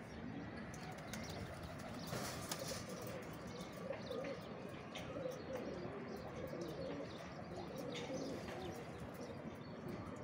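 Domestic pigeons cooing over and over, with short high chirps and clicks scattered throughout.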